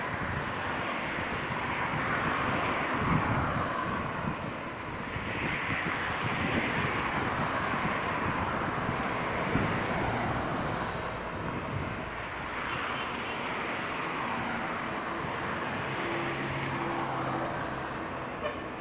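Cars driving past one after another, their tyre and engine noise swelling and fading as each goes by, with a steady low engine hum near the end.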